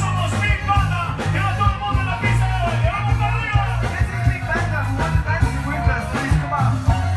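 Loud dance music with a heavy bass line and a steady beat.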